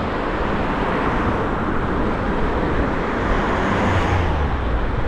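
Steady rush of wind on the microphone and street traffic while moving along a city cycle path, with a vehicle going by about four seconds in.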